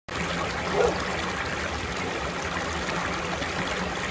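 Shallow water flowing over a stone ledge in a small cascade, a steady rushing trickle that starts abruptly, with one short louder sound about a second in.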